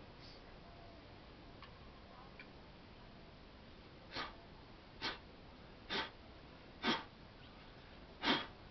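A cat right beside the microphone makes five short, soft noises about a second apart, starting about halfway through, with the last one the loudest.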